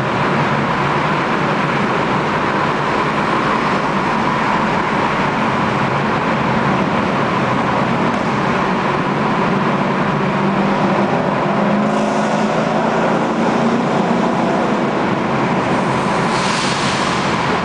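Ford Mustang GT V8 with aftermarket boomtubes exhaust pipes running steadily at cruising speed in a road tunnel, heard from inside the car. Two short rises of hiss come about twelve seconds in and near the end.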